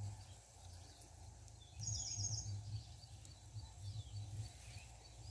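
Faint outdoor ambience: a bird gives a quick run of high chirps about two seconds in, with fainter scattered chirps and a low rumble underneath.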